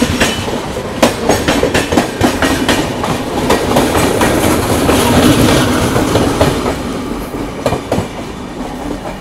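A passenger express overtaking on the next track, close by, its coaches' wheels clattering over the rail joints in quick, loud clicks. The noise eases near the end as the last coach, a luggage brake and generator car, goes by.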